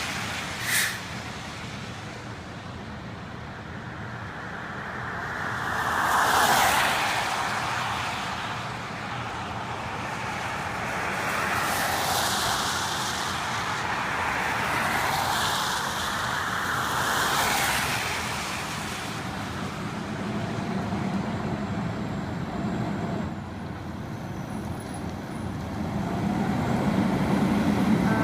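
Road traffic: several vehicles pass one after another, each a swell of tyre and engine noise, with a sharp click about a second in. A low rumble grows louder near the end.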